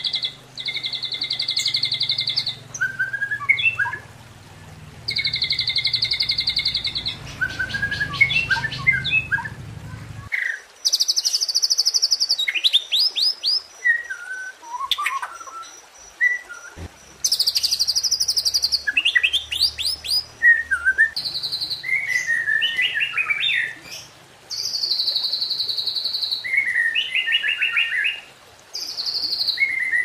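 White-rumped shama (murai batu) singing a varied song of long buzzy trills, rapid repeated notes and short whistled phrases.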